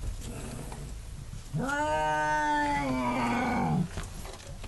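Cornered feral house cat giving one long yowl, the defensive howl of an angry cat being grabbed at. It starts about one and a half seconds in, holds its pitch for about two seconds, then turns rough and falls away.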